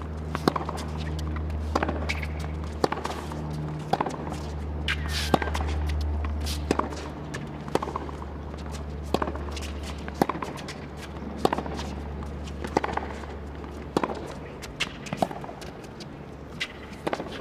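Tennis rally on a hard court: tennis balls struck by rackets and bouncing, a sharp pop every second or so, with players' footsteps.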